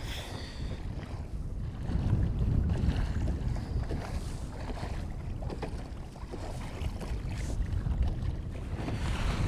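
Wind buffeting the microphone in a low rumble, with water splashing and lapping around a sea kayak on a windy sea.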